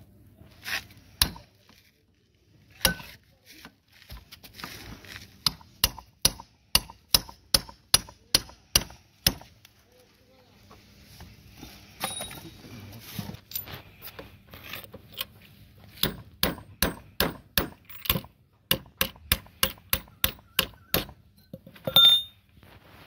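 Hammer blows while fixing a steel threaded nipple into a black HDPE pipe: a few single knocks, then two long runs of even strikes at about three a second, with a louder ringing metal strike near the end.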